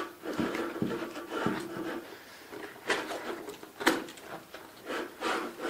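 Nylon MOLLE pouch strap rubbing and rasping as it is pulled through the stiff webbing loops of a plate carrier, with a few sharp knocks as the gear is handled, the loudest about three and four seconds in.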